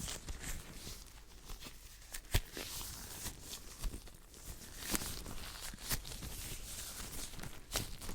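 Hands rubbing and brushing together quickly, very close to a sensitive microphone: a dry, uneven rustling broken by several sharp taps or clicks.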